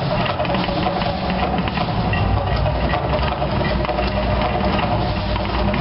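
Mirage volcano show erupting: a loud, steady deep rumble with a dense rushing noise over it as the fire and water effects go off.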